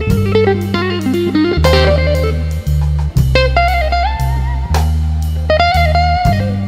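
Blues instrumental music: a lead guitar playing a melody with bent notes over a bass line and a steady drum beat.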